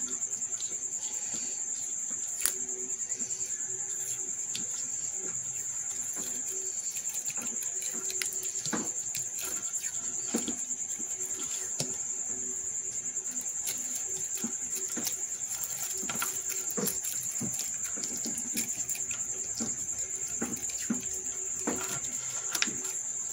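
Crickets chirping steadily in the background. Over them come scattered soft clicks and crinkles of black electrical tape being pulled off the roll and wrapped around spliced wire joints.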